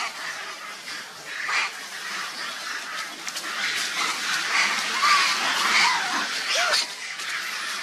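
Long-tailed macaques calling: a few short squeaks and coos that bend up and down in pitch in the second half, over a steady outdoor hiss with light rustling.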